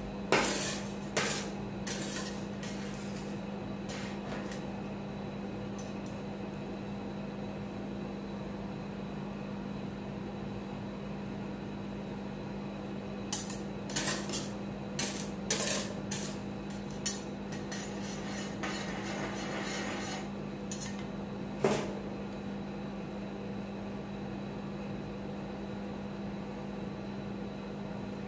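Steel spatulas scraping and clacking on the stainless-steel cold plate of a rolled-ice-cream pan as frozen scraps are chopped loose and pushed into a pile. The scraping comes in bursts near the start and again from about 13 to 17 seconds, with a last sharp knock around 22 seconds, over a steady low hum.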